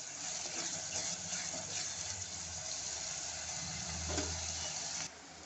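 Coarsely ground shallots, garlic and curry leaves sizzling steadily in hot sesame oil in a clay pot as they are stirred with a wooden spatula, sautéed until they soften and shrink. The sound drops off suddenly near the end.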